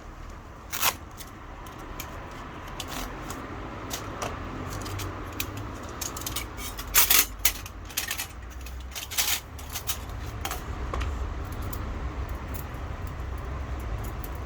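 Light metallic clinks and taps, spaced irregularly, with the sharpest about a second in, around seven seconds in and around nine seconds in, over a steady low rumble.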